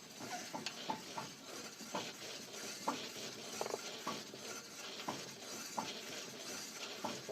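Front drivetrain of a 2011 Polaris RZR 4 turning as the left front wheel is spun by hand, giving a steady scraping rustle with irregular metallic clicks and clinks about once or twice a second. It is an unexplained noise that the owner feels in the driveshaft and gets only from the left wheel, with a recently fitted differential whose oil showed no filings.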